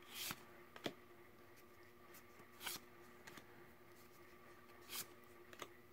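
Faint swishes of Yu-Gi-Oh! trading cards sliding against each other as a stack is flipped through card by card: about four soft swishes a second or two apart, with a light click about a second in.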